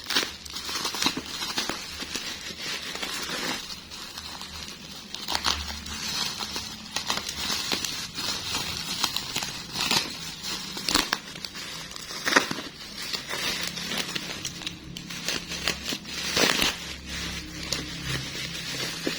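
Plastic packaging being crinkled and pulled open by hand, a continuous rustle broken by sharp snaps and crackles.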